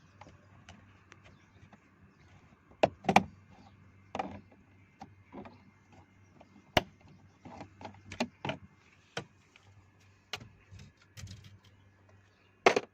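Plastic interior door trim being pried off a Ford EcoSport door: irregular sharp clicks and snaps as the retaining clips let go and the panel is handled, the loudest about three seconds in and near the end. A faint steady low hum runs underneath.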